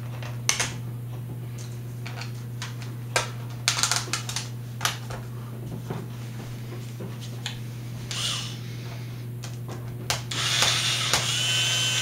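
Small laptop screws being set into their holes with light clicks and taps. About ten seconds in, a weak battery drill starts to run, driving the screws back in.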